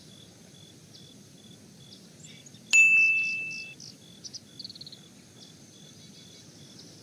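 A bright single ding about three seconds in, ringing on one tone and fading over about a second: the notification chime of a subscribe-button animation. Under it, a faint bed of repeated high insect and bird chirps.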